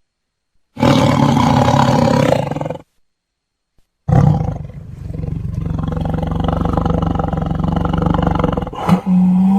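Big cat roaring twice: a roar of about two seconds beginning about a second in, then after a short silence a longer roar of about four and a half seconds.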